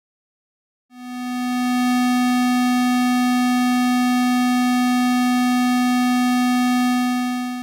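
Unfiltered test tone of about 250 Hz: a steady buzzy tone rich in overtones, the input signal with no lowpass filter applied. It fades in over about a second, starting about a second in, and cuts off abruptly at the end.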